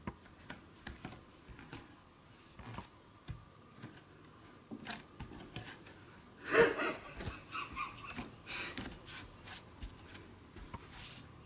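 A Bengal kitten sniffing right up against the camera microphone: short breathy bursts, the loudest about six and a half seconds in, among light taps and knocks on the camera.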